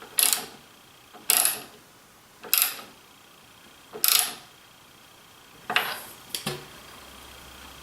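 Six short metallic clinks and scrapes of hardware being handled, spaced about a second or more apart, the last two close together near the end.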